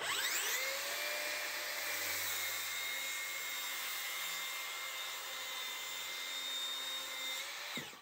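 Makita cordless track saw spinning up, running steadily with a high whine as it cuts through a shelf board along its guide rail, then winding down near the end.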